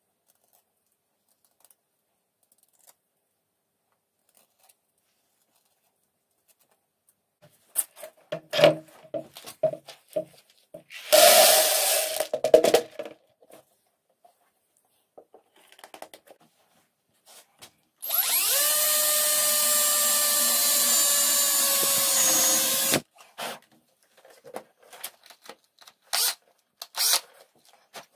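Cordless power drill spinning up and running at a steady speed for about five seconds before stopping abruptly. Before that come scattered clattering and a short loud rustling burst.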